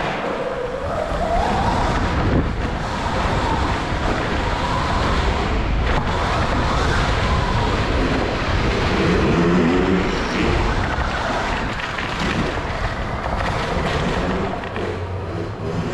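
Dirt bikes riding on a track: a steady rushing noise, with a motor's pitch rising and falling a few times.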